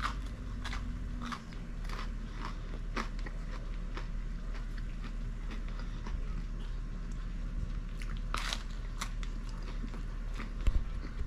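A person biting into and chewing crisp, crunchy pizza crust: a run of short crunches, about two a second, with a stronger cluster near the end, over a steady low hum.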